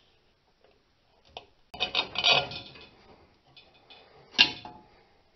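Metal parts and a hand tool clinking and rattling against a steel drum-brake backing plate as the parking-brake cable is worked free, with a single sharp metal clank just before the end.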